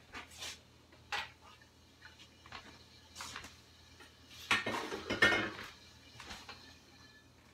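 Kitchen clatter of dishes, utensils and a frying pan being handled: a few light clinks and knocks, then a louder run of clattering a little past halfway.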